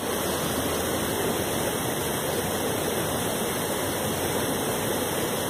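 Steady rushing noise, even and unchanging, with no music or voice in it.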